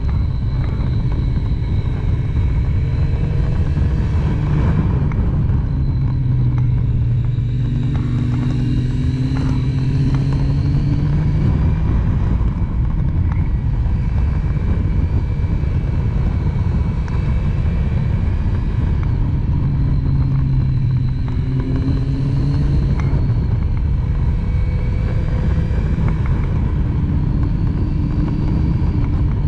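Triumph Street Triple's inline three-cylinder engine running under way, its revs rising and falling several times through the bends, with a heavy rush of wind noise underneath.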